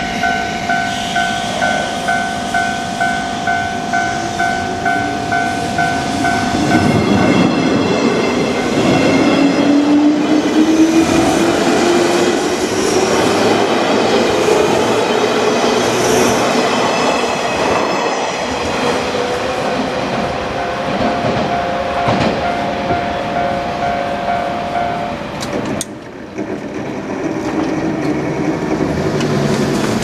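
Japanese level-crossing warning bell ringing in quick repeated dings, then a JR West 201 series electric train passes close over the crossing as it pulls away from the station. Its motor whine rises steadily in pitch as it gathers speed, over wheels clattering on the rails, and the bell tone can still be heard under the train later on. About four seconds before the end, the sound drops suddenly.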